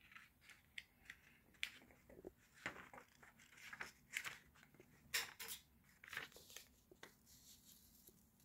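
A translucent plastic tracing-grid sheet and paper being handled, with faint, irregular crinkles and sharp clicks coming and going.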